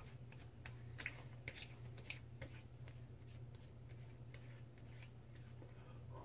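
Faint, irregular small clicks and wet smacks of fingertips rubbing water over lathered skin to clear off leftover shaving soap, over a low steady hum.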